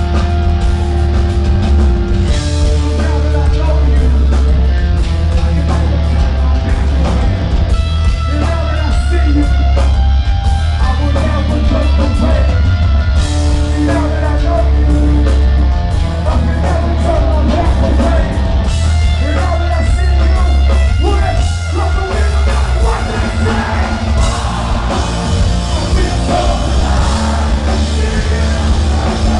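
Rock band playing loud live, recorded from the crowd: distorted electric guitar, booming bass and drums, with the frontman singing and yelling into his microphone.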